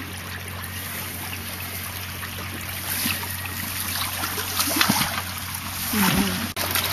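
Shallow burn water running over a riffle, with splashes that grow more frequent from about three seconds in as the electrofishing anode and hand net are worked through the water, over a steady low hum.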